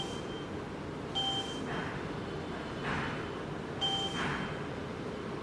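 Button beeps from the SEC E9 key cutting machine's touchscreen as a key code is entered: three short two-tone beeps about a second or more apart, over a low steady hum.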